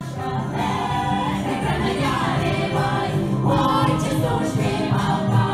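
Music with a group of voices singing, starting abruptly.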